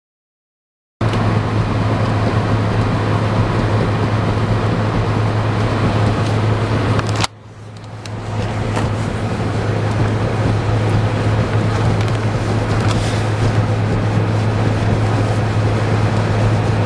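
Car driving on a highway through blowing snow: steady road and wind noise with a constant low drone, starting abruptly about a second in. About seven seconds in a click cuts the noise down briefly before it builds back to the same level.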